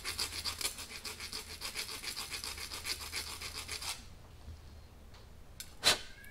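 Hand file scraping across the cut end of an aluminized 3/16 brake line in quick back-and-forth strokes, deburring it before flaring; the filing stops about four seconds in. A sharp clink, the loudest sound, comes near the end.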